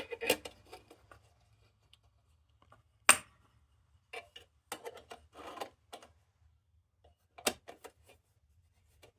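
Steel lantern parts of a Dietz Monarch hot-blast lantern clicking and clattering as they are handled and fitted together: a sharp metal clack about three seconds in, a run of lighter taps and rattles after it, and a couple more clicks near the end.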